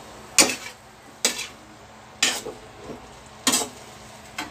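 A metal ladle scraping and stirring food around inside a metal wok: four brisk strokes about a second apart, then a lighter fifth near the end.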